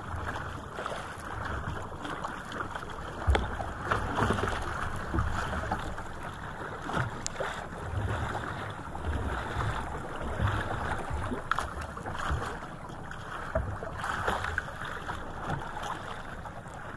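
Wind buffeting the microphone over water splashing and lapping against a small paddled outrigger boat, with a few knocks, the loudest about three seconds in.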